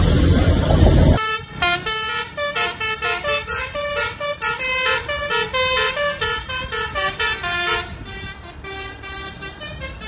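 Indonesian bus 'telolet basuri' musical horn playing a tune of quick, stepping notes, several a second, starting abruptly about a second in after loud road noise. The notes grow fainter from about eight seconds in.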